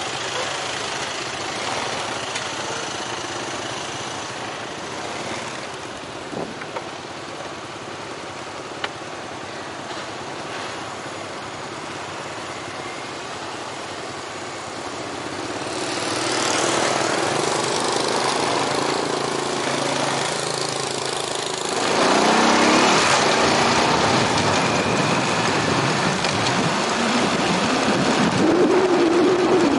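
Motorbike engine running while riding through city traffic. About halfway the ride picks up speed: the engine climbs in pitch and a rush of wind and road noise grows louder.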